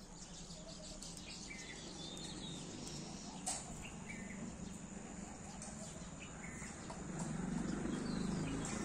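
Small birds chirping outdoors, with short high calls every second or so. There is a sharp click about three and a half seconds in, and a low rumble grows louder near the end.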